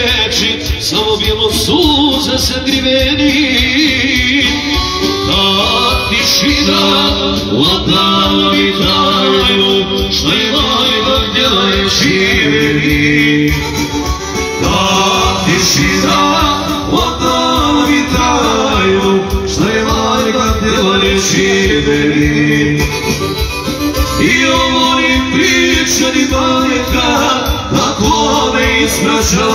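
Live amplified music: a male singer sings into a handheld microphone over an electronic keyboard, both played through PA speakers. It is loud and continuous, with long held notes.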